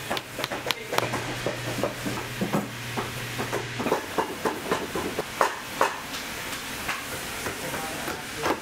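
Cobbler's hand tools on a leather boot: a blade scraping and trimming the leather, with many irregular sharp clicks and taps, and light hammer taps on nails near the end.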